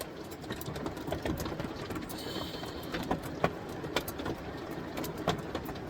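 Hailstones pelting the roof, heard from inside the bedroom below: a dense, irregular clatter of sharp hits over a steady hiss of rain.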